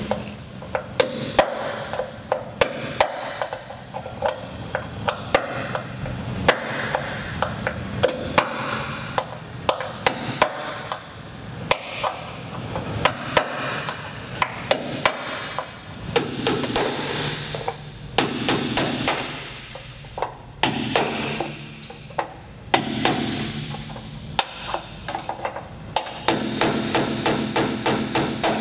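Small hammer striking a pin punch against the aluminium rivets of an aircraft wing skin, knocking out rivets whose heads have been drilled off. Sharp metallic taps, irregular and often in quick runs.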